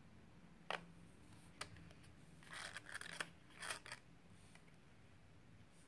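Folded paper crinkling and rustling as the model is pressed and shaped by hand, with two sharp taps in the first two seconds and the crinkling clustered in the middle.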